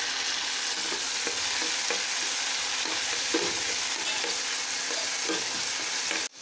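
Chopped tomatoes, shallots and garlic sizzling in hot oil in a stainless-steel kadai, stirred with a steel ladle that scrapes and clicks lightly against the pan. The sound drops out briefly just before the end.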